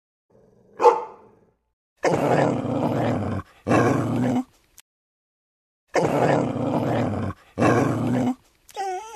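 Dog sounds: a short bark about a second in, then growling in two pairs of bursts, and a wavering whine that starts near the end.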